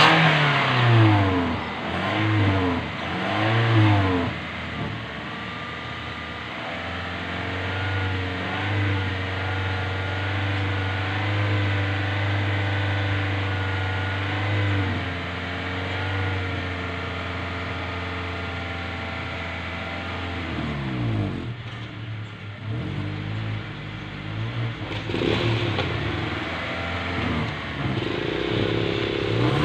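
Toyota Innova engine revved in three quick blips, then held at a steady raised speed for about fifteen seconds before dropping back. It is revved again near the end. The engine is being run up to clear carbon out through the exhaust during a decarbonising treatment.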